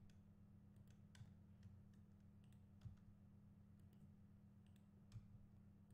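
Near silence with scattered faint clicks of a computer mouse and keyboard, a few sharper ones about a second in, near three seconds and near five seconds, over a low steady hum.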